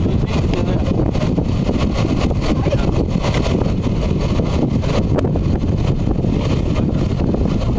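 MAN heavy-haul truck's diesel engine running under load as it pulls a multi-axle trailer carrying an oversized load, heard with wind noise on the microphone.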